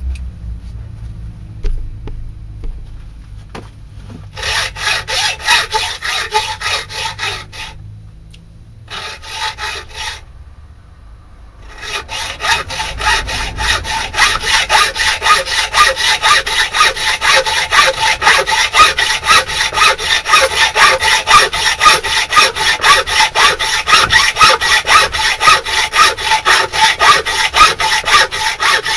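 A hand saw cutting with rhythmic back-and-forth strokes. It starts and stops a couple of times, then runs steadily from about twelve seconds in.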